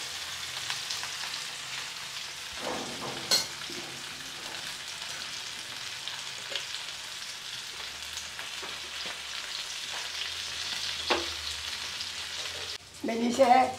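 Masala-coated fish frying in hot coconut oil in a pan: a steady sizzle, with a couple of sharp clicks. Near the end the sizzle breaks off and a voice comes in.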